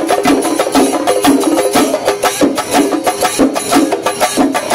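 Kerala temple percussion ensemble (chenda melam): chenda drums beaten fast and hard with sticks and clashing cymbals, over a short repeating melody.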